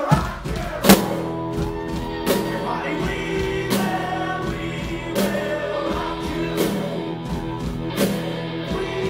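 Live rock band with drum kit, bass and electric guitar coming in at full volume right at the start, under lead and harmony vocals. A strong drum hit lands about every second and a half.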